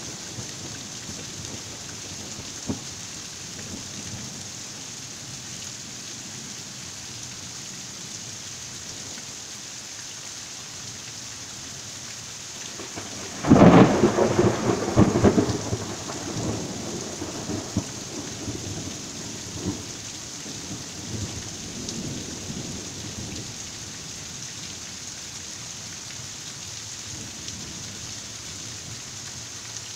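Heavy rain falling steadily, with a sudden loud thunderclap about halfway through that rumbles on and fades away over several seconds.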